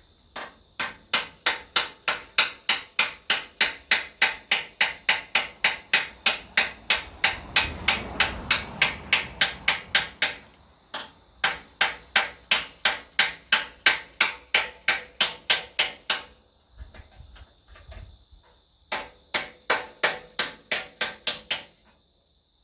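Hammer blows struck in a steady rapid rhythm, about three a second, in three runs with short pauses between.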